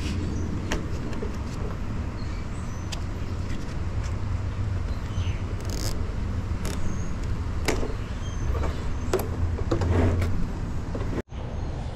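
Light clicks and rubbing of hands working a tie around the rim of a plastic barrel, scattered every second or two over a steady low rumble.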